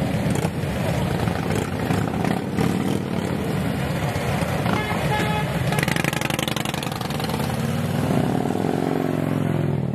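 A procession of Harley-Davidson V-twin motorcycles riding past close by at a slow parade pace, their engines running loud and continuously. Near the end one bike's engine note rises and falls as it is revved or goes by.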